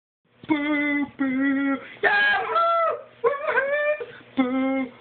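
A voice singing a run of about six short held notes, with a couple of rising, sliding notes in the middle.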